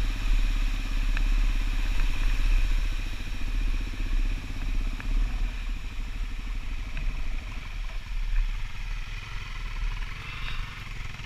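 Motorcycle engine running steadily as the bike rides along on wet gravel, heard from on the bike itself, with a low rumble under it; the engine pulse eases a little about halfway through.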